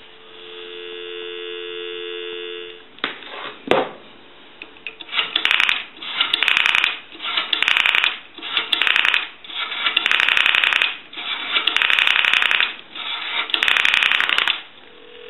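Dial tone from the Northern Electric 3-slot payphone, then two clicks and about seven separate bursts of rapid clicking as a number is dialed, one burst per digit. A steady tone starts just before the end.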